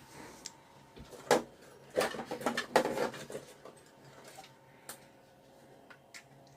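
Light clicks and knocks of small objects being handled, with a short burst of clatter about two seconds in, over a faint steady electrical hum.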